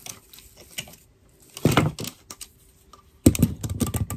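Plastic and metal clicks and clatter of a camera tripod being handled: scattered clicks as the phone holder comes off the tripod head, a louder knock about one and a half seconds in, then a quick run of rattling clicks near the end as the tripod is moved into place.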